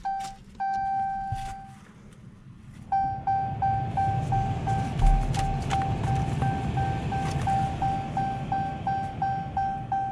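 Dodge Challenger's dashboard warning chime as the ignition is switched to run with the engine off: a short beep, a longer held tone, then from about three seconds in a steady repeating chime about three times a second, over a low hum.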